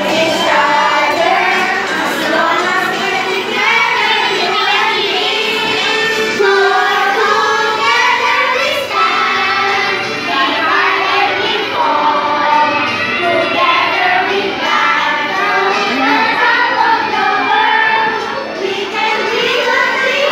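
A group of young children and adult women singing a song together.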